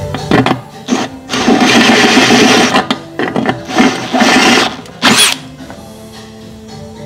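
A power tool run in several short, loud bursts, one with a rising high whine near the end, over background music.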